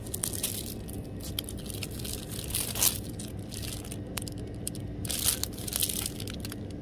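Plastic packaging crinkling and rustling in irregular bursts as cellophane-wrapped sticker packs and adhesive rhinestone sheets are handled and taken from a display hook, loudest a little before halfway and again about three quarters through.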